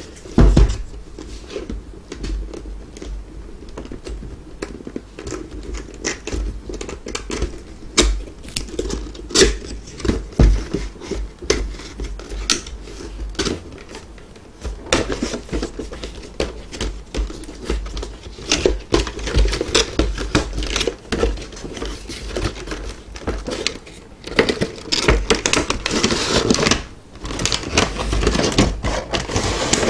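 Cardboard box and plastic packaging being handled and opened by hand: rustling and crinkling with many scattered light taps and knocks, busiest in the second half.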